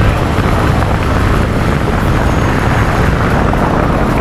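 Wind rushing and buffeting steadily over a helmet-mounted action camera's microphone while riding a motor scooter at speed.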